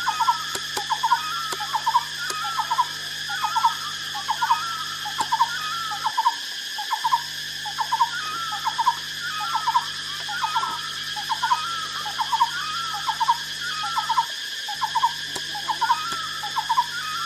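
An animal calling over and over, a short clipped call repeated evenly about three times every two seconds, over a steady high insect drone.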